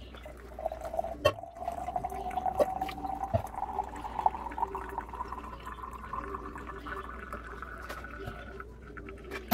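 Freshly brewed coffee running from a cloth coffee filter into a thermal carafe. The filling note rises steadily in pitch as the carafe fills and stops near the end. A few light knocks occur along the way.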